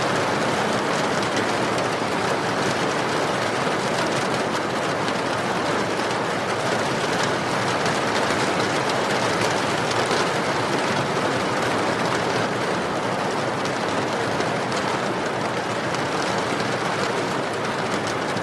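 Steady rain falling, an even rushing hiss with faint scattered drop ticks.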